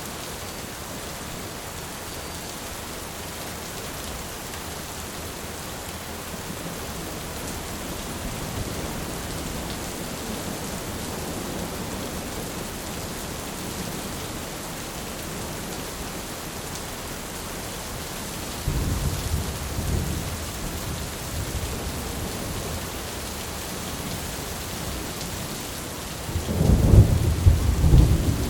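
Heavy rain pouring steadily, with thunder rumbling in twice: a rumble about two-thirds of the way in and a louder crack-and-rumble near the end.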